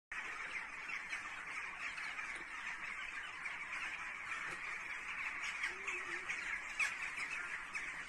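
A large flock of birds calling all at once in the dark, a dense, continuous chatter of many overlapping short calls, from birds flying about as if panicked.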